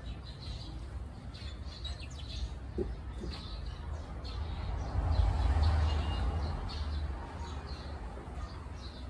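Small birds chirping intermittently in the background over a steady low outdoor hum. About five seconds in, a rumbling rush of noise on the microphone swells for a couple of seconds and then fades.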